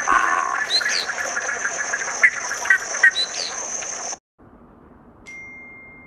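Nature recording played as the great egret's call: short chirps and clicks over a steady high-pitched hum, cutting off suddenly about four seconds in. A faint steady beep tone starts near the end.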